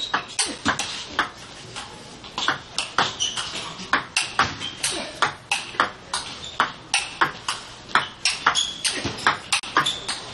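A long, fast table tennis rally: the ball clicks off the bats and the table in quick alternation, about two or three hits a second.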